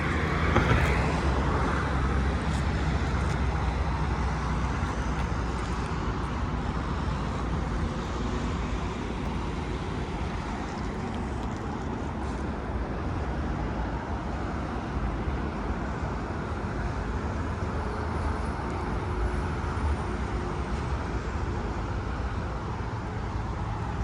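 An engine running steadily with a low rumble and an even wash of noise.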